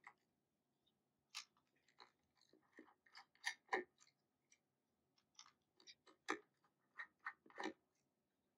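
Faint, scattered clicks and small scrapes of a precision screwdriver working small screws out of a radio's internal control board.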